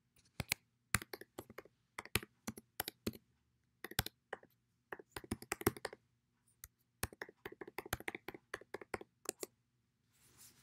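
Typing on a computer keyboard: key clicks in several quick bursts with short pauses between, as a server address, username and password are entered.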